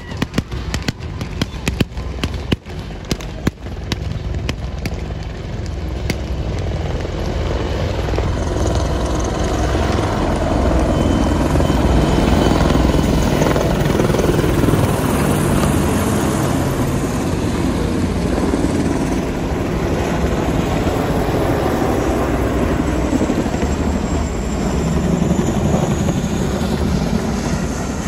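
A rapid string of sharp bangs from the charge's smoke and blank-fire effects for the first few seconds. Then a formation of military helicopters (AH-64 Apaches, Black Hawks and a CH-47 Chinook) flies low overhead. Their rotor and turbine noise builds from about six seconds in, is loudest near the middle and carries on steadily.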